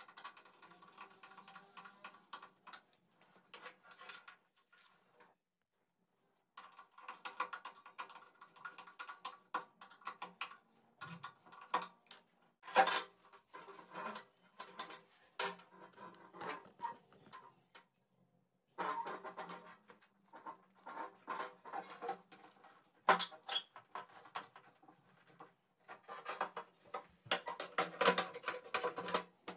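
Irregular clicks, taps and light metallic clatter of hands-on fitting work: a screwdriver on a hose clamp at a brass gas fitting, the rubber gas hose being handled and a stainless steel gas hob being set into its worktop cutout. The sound drops out completely twice, briefly.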